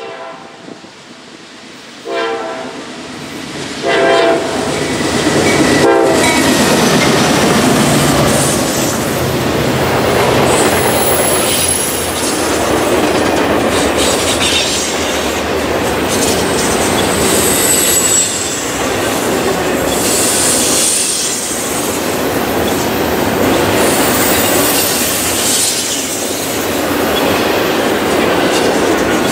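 Approaching freight train's horn sounds four short blasts, then the long intermodal train rolls past close by. Its wheels rumble and clatter, with high-pitched wheel squeal at times.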